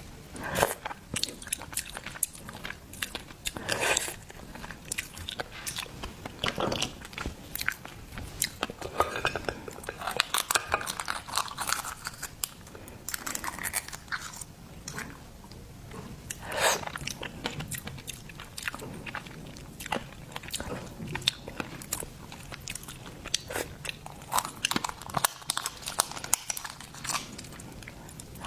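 Close-miked eating of seafood: a steady stream of wet chewing and biting with sharp crunches and clicks, louder bites landing irregularly every few seconds.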